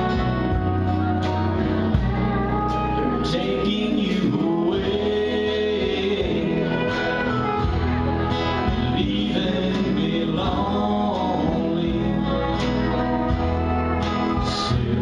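A live traditional country band playing: electric and acoustic guitars, pedal steel guitar, keyboard and drums, with gliding steel-guitar-like tones over a steady beat.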